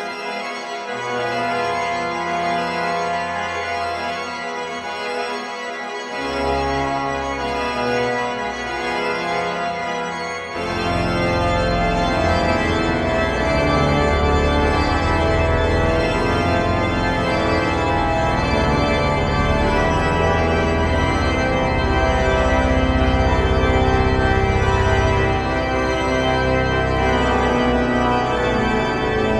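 Pipe organ playing sustained chords. Deep bass notes come in about six seconds in, and about ten seconds in the sound grows fuller and louder, holding there with the bass notes moving.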